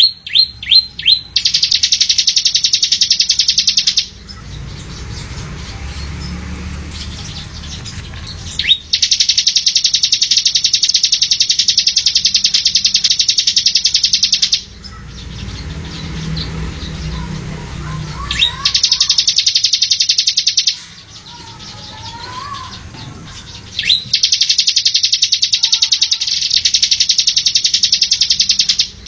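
Bar-winged prinia (ciblek) singing in full voice: four long, very fast rattling trills of a few seconds each, each led in by a few short sharp notes, with quieter gaps between.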